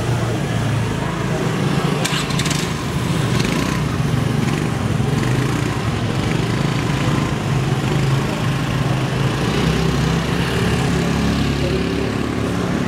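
Small motor scooter and motorcycle engines running close by as they ride past along a street, a steady engine hum with traffic noise behind it. A few brief clicks about two seconds in.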